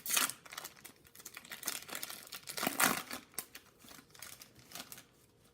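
Crinkling and tearing of a foil booster pack wrapper being torn open and handled: irregular crackles, loudest at the start and again about three seconds in.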